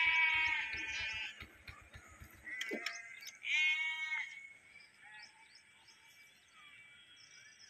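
Livestock bleating: a long bleat that fades out about a second and a half in, then a second, shorter bleat about three and a half seconds in.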